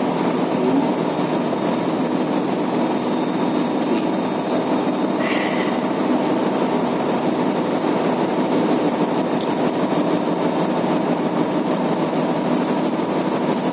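Steady drone of a ship's machinery, with a brief high chirp about five seconds in. Faint crinkling of a plastic bag comes near the end.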